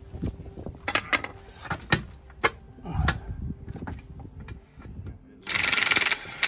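Scattered metal clanks and knocks as the steel trim pistons and tools are handled. About five and a half seconds in, a DeWalt cordless impact wrench starts running on a trim-cylinder pivot bolt. The impact wrench is the loudest sound.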